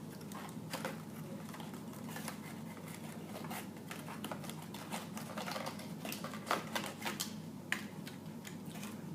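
Toy helicopter packaging being handled as the helicopter is taken out of its box: scattered small clicks and crackles of plastic and cardboard, a few sharper ones after about six seconds, over a low steady hum.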